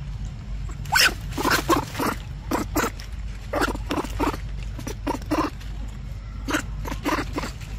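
Young macaque biting and chewing a ripe mango: short clusters of wet smacking and crunching clicks, repeated several times.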